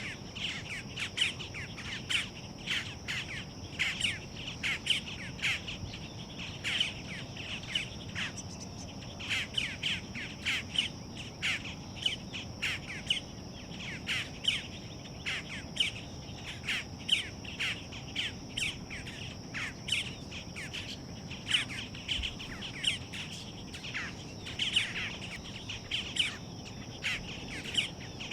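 Boat-tailed grackles calling: a steady stream of short, sharp calls, two or three a second, over a steady high insect buzz.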